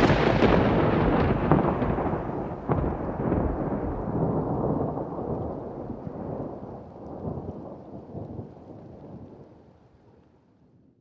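Thunder: a loud clap with a few sharp cracks in the first seconds, then a long rolling rumble that fades away over about ten seconds to near silence near the end.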